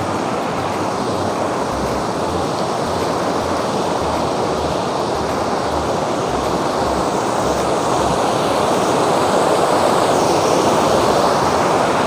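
Steady rush of a stream of water cascading over rocks below a waterfall, growing a little louder toward the end, with an uneven low rumble underneath.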